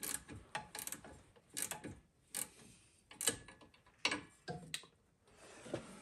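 A ratchet clicking in short, irregular bursts as the adjusting bolt on the A/C belt's tensioner pulley is turned to tighten the belt.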